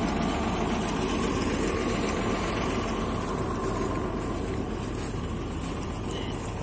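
An engine idling steadily, an even hum with no change in speed.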